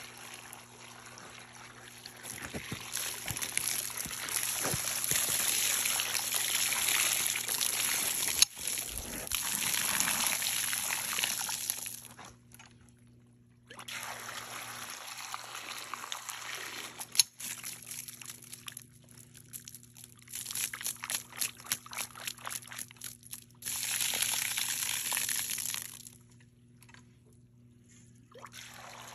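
Water pouring from a yard hydrant over carrots in a steel bowl, turned off and on twice, with quick splashing and sloshing in the middle as the carrots are rinsed.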